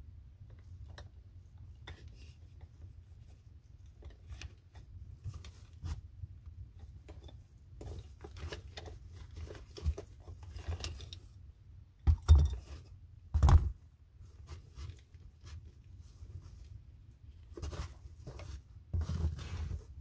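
Wood-handled chisels and carving tools being handled in a fabric tool pouch: scattered light clicks, clinks and rustling, with two louder knocks a little past the middle and a few more near the end.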